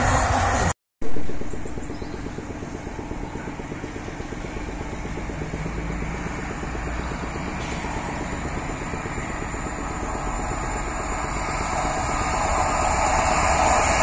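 A train's engine running with a fast, even pulse, growing louder toward the end as the train approaches; the sound cuts out briefly about a second in.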